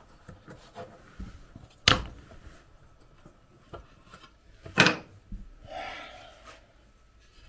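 Wooden raising blocks handled under a laser engraver's legs, with two sharp wooden knocks about three seconds apart, the first about two seconds in. A brief scraping rub follows, with small clicks and taps throughout.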